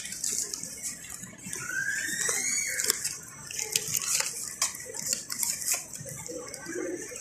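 Supermarket background noise: a steady high hiss with scattered light clicks, and a short rising squeak about two seconds in.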